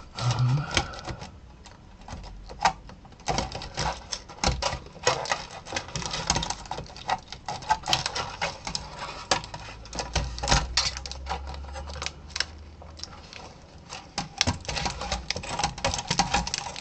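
Irregular clicks, taps and rattles of hands working on an opened LCD monitor's sheet-metal chassis and its cables, fitting connectors and routing wires.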